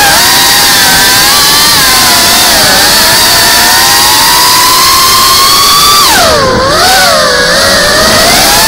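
FPV drone's brushless motors and propellers whining loudly, heard from the drone's own onboard camera. The pitch follows the throttle: it climbs slowly, drops sharply about six seconds in, then rises and falls again.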